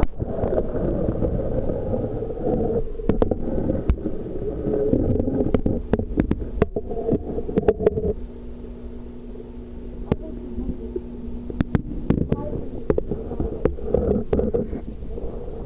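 Underwater camera submerged in a saltwater aquarium, giving a muffled water rumble with many sharp knocks and clicks as it is jostled and bitten by a queen triggerfish carrying it off. A steadier low hum comes through from about eight seconds in.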